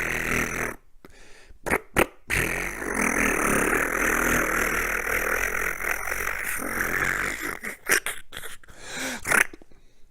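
Cordless 18-volt power tool driving into the wood of a 2x4 and cart legs: a short run ending just under a second in, a couple of clicks, then a long run of about five seconds, followed by several short bursts near the end.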